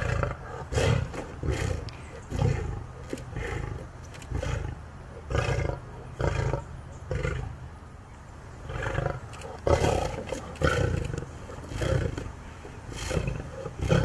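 Lioness roaring in a long bout of short, repeated calls, about one a second, some louder than others.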